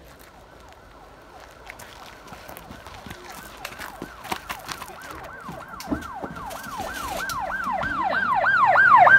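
Police siren yelping in quick falling sweeps, about two a second, growing steadily louder as it approaches.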